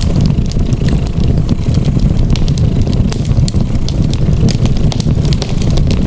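A cat's steady low purr, the loudest sound, with a fireplace fire crackling over it in frequent small pops.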